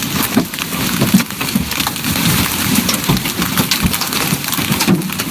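Loud, steady rushing noise of heavy rain in a storm, with many small sharp hits scattered through it.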